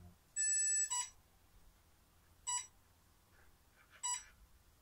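Electronic beeping from the combat robot's electronics at rest: one higher tone lasting about half a second near the start, then short beeps evenly spaced about every one and a half seconds, three in all. The weapon is not spinning.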